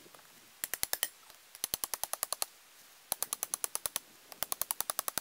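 Four quick runs of sharp, evenly spaced clicks, about twelve a second, each run lasting under a second, with short pauses between.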